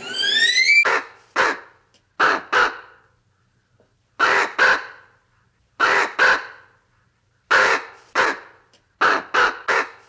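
A crow cawing: harsh caws, mostly in pairs with gaps of one to two seconds between them, and a run of three near the end. A brief rising whistle comes before the first caw.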